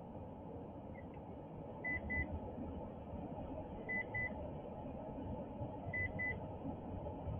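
Pairs of short, high electronic beeps repeat about every two seconds over a steady whir. This is the Goal Zero Yeti 1000 lithium power station's alarm while its AC output carries about 1,340 watts and its battery runs low, nearing the point where it shuts the port off.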